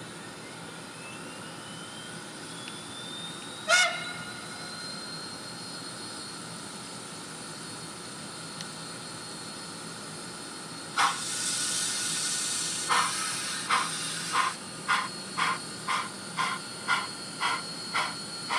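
Model steam locomotive's TCS WOW sound decoder: a thin whine rises in pitch and then holds steady, like a turbo-generator spooling up, with a short, loud whistle toot about four seconds in. Near the middle, a burst of steam hiss starts, followed by even exhaust chuffs at about two a second as the engine begins to work.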